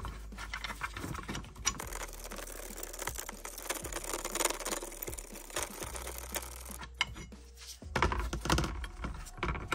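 Rusty parts of an old Record pipe wrench being worked by hand: the hook jaw rattles and scrapes as it is worked out of the frame, giving a dense run of small metal clicks, with louder knocks near the end.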